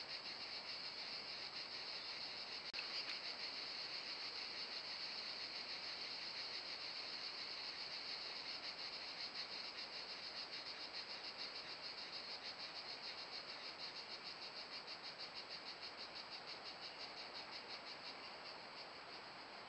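Insects chirping steadily in a continuous high-pitched pulsing trill, with one brief click about three seconds in.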